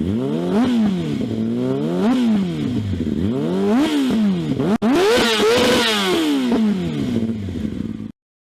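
Yamaha YZF-R6 inline-four revved through a Delkevic stubby exhaust canister, in four blips that rise and fall in pitch, the last one higher and held longer. The sound cuts off abruptly near the end.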